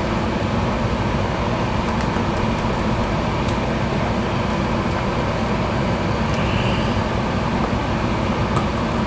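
Steady low background hum, like a running fan or air conditioner, with a few faint light clicks of small plastic remote-control parts being handled and pressed back together.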